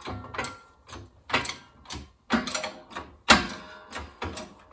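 Metal clicks and clanks from a small hydraulic shop press being worked in short strokes while a bearing is seated in a mower deck spindle housing: about ten sharp knocks at uneven intervals, the loudest about two-thirds of the way through.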